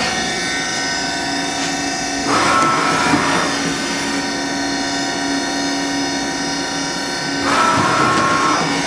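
Mori Seiki MV-JR vertical machining center running a looped program, its spindle turning at 3,500 RPM: a steady machine hum made of many steady tones. Twice, about two and a half seconds in and again near the end, a louder whining, rushing sound comes in for about a second.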